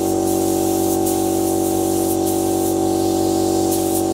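Paint spray gun hissing in repeated short bursts as paint is sprayed over a car's interior, over a constant droning hum that cuts off suddenly at the end.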